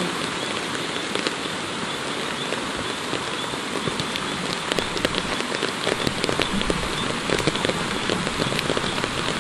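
Steady rain falling on bamboo and undergrowth: an even hiss with many small drop ticks scattered through it, more of them from about four seconds in.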